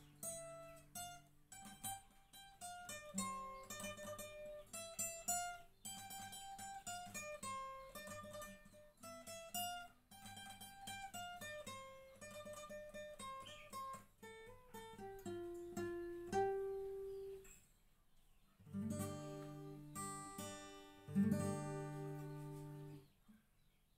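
Acoustic guitar played solo: an instrumental passage of plucked single-note melody over bass notes. Near the end, two strummed chords ring out and stop.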